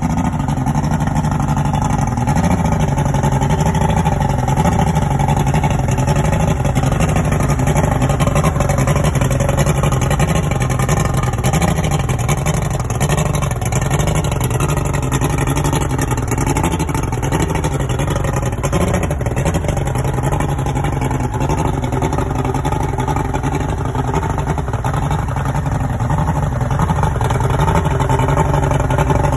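Outboard motor idling steadily just after starting, with its cowling off, running out of the water on a garden hose; its speed wavers slightly.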